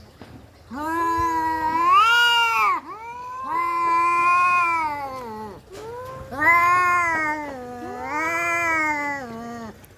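Two orange tabby cats yowling at each other in a standoff: four long, wavering caterwauls of about two seconds each, the first climbing into a higher wail near its end. This is the threat yowling of cats squaring up to fight.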